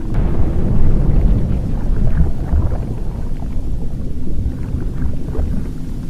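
Volcanic eruption rumbling: a deep, continuous rumble with scattered crackles and pops.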